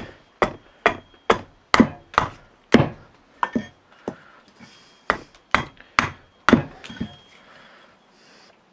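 Small hatchet chopping into a wooden carving blank resting on a wooden chopping stump, roughing out its outline: a quick run of about eight sharp blows, a pause, then about five more.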